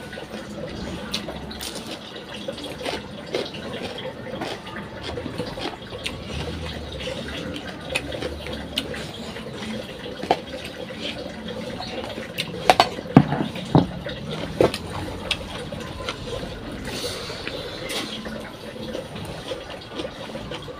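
Close-up eating sounds: wet chewing and lip smacking of rice and fish curry eaten by hand, with many small clicks and a few louder knocks a little past the middle.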